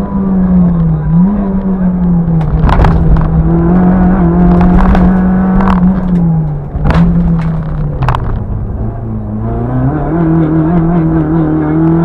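Peugeot 106 GTi's 1.6-litre 16-valve four-cylinder engine heard from inside the cabin, running hard at high revs, its pitch dipping and climbing again with gear changes and lifts off the throttle. Several sharp knocks or cracks from the car come in the middle few seconds.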